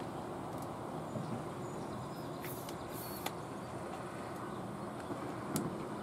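Steady low rushing outdoor background noise, with a few faint clicks and ticks.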